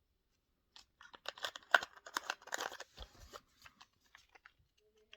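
Plastic packaging crinkling and clicking as small items are handled out of a box, busiest in the first half, then a few scattered light clicks.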